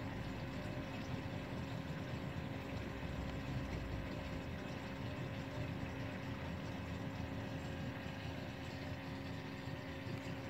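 Jebao RW4 wave pump running submerged in an aquarium: a steady low hum with a few faint constant tones on top.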